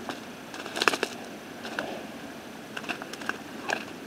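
Irregular slaps and rustles of freshly caught fish flapping in a nylon cast net on grass, a few sharp hits spread over the seconds with the loudest about a second in.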